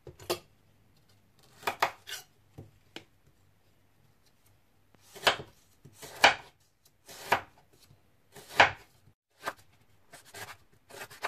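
Kitchen knife slicing a lemongrass stalk into thin rings on a wooden cutting board: a dozen or so separate crisp chops, uneven, roughly one a second.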